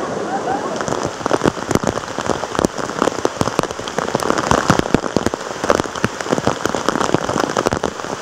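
Rain falling on standing floodwater: many close-spaced, irregular drop hits. For about the first second a steady rush of flowing floodwater comes before the rain.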